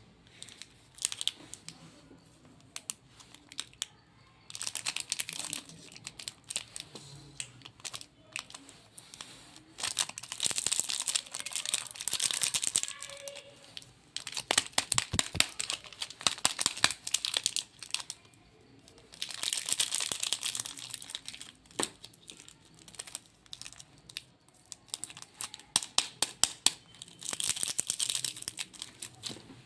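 Plastic candy wrappers crinkling and tearing as lollipops and sweets are unwrapped, in bursts of a few seconds with quieter pauses between.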